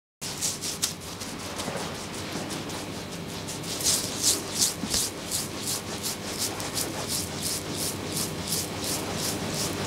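Fingertips rubbing shaving lather into beard stubble in quick, regular, wet strokes, about three a second, over a low steady hum.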